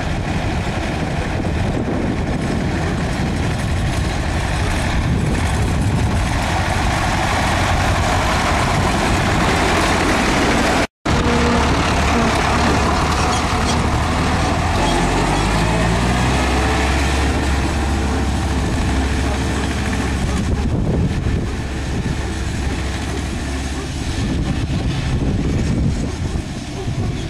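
Ursus tractors' two-cylinder diesel engines running close by, with heavy noise over the sound. After a cut about eleven seconds in, the engine note steps up in pitch as the engine revs higher.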